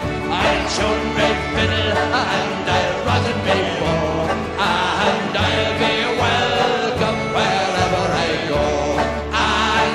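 Irish folk song played on strummed acoustic strings, banjo and guitar, with voices singing.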